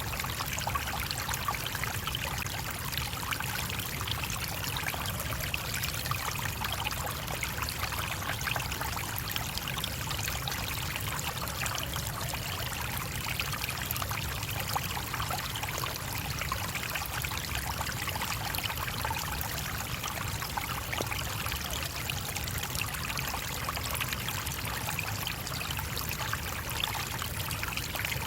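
A shallow stream flowing and babbling steadily over stones, a constant rush of water with fine trickling and a low rumble underneath.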